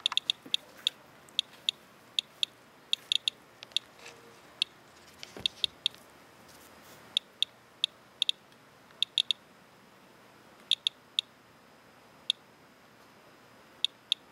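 Radalert Inspector Geiger counter clicking: short, high chirp-like clicks at random intervals, a few a second, each one a detected count from a rain-soaked swipe. The rate is low: almost nothing there, about three times background.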